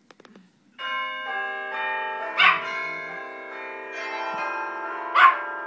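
Bell tower sound effect played from a computer: church bells ringing together in a sustained, overlapping peal. It starts a little under a second in, after a few faint clicks, and two short, sharp, louder sounds come over it about three seconds apart.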